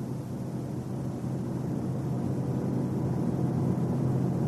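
Car being driven at speed: a steady low drone of engine and road noise that slowly grows louder.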